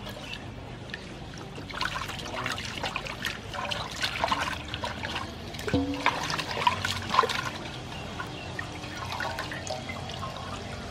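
Water splashing and sloshing in a metal basin as a whole raw chicken is rubbed and washed by hand, with one sharp knock and brief ring of the basin about six seconds in. Near the end, water runs off the chicken as it is lifted out.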